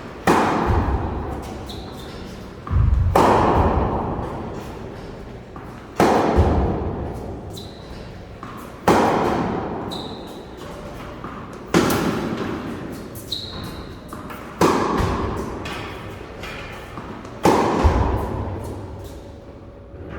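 Balls being struck hard at a steady pace, about one every three seconds, seven times, each strike echoing and dying away in a large hall, with faint high pings between strikes.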